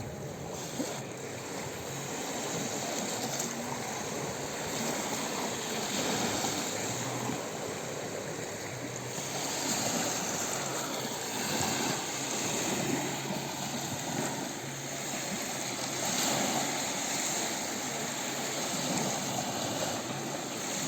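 Gentle sea waves washing onto a beach, the surf swelling and falling every few seconds.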